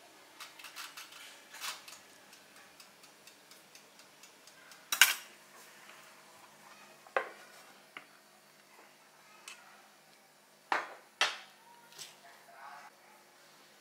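Metal kitchen tongs and a metal baking tray clinking and clanking: a few light clicks in the first two seconds, then single sharp clanks about five and seven seconds in and a close pair near the end, the one about five seconds in the loudest.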